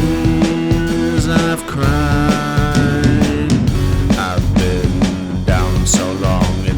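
Blues-rock band recording playing: distorted electric guitar, bass, organ and drums.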